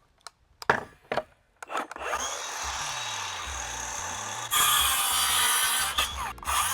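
Cordless power saw cutting through a timber batten: a couple of clicks, then the saw runs steadily from about two seconds in, getting louder about halfway through as the blade works through the wood.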